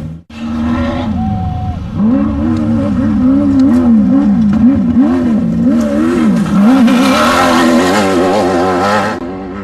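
Off-road desert race car's engine revving hard, its pitch rising and falling over and over as the throttle is worked on and off. The sound fades near the end.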